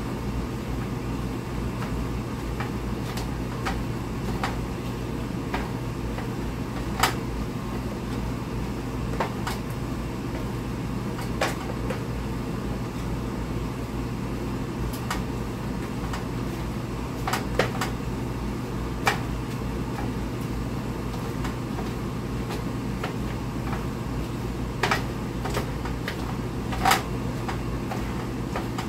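A steady low hum, with scattered sharp clicks and taps, about ten in all and at irregular spacing, as a hand food chopper knocks against a plastic bowl of cooked cabbage.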